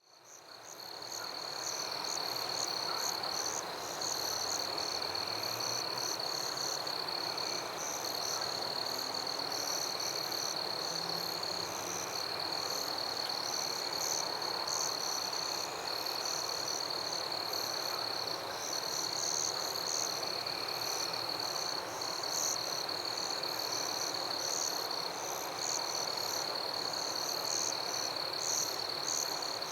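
Night chorus of crickets and other insects: one steady high trill with quicker pulsing chirps above it and a dense hiss of calls beneath, fading in over the first two seconds.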